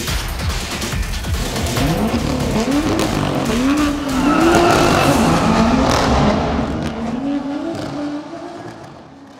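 BMW M2's turbocharged straight-six accelerating hard through the gears, its pitch rising and dropping back at each upshift, then fading away near the end.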